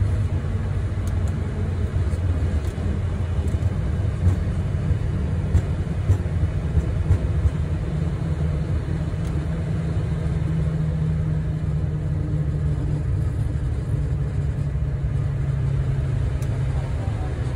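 Steady low rumble inside a Boeing 737 MAX cockpit as the airliner rolls out on the runway after landing, with a few brief knocks in the middle.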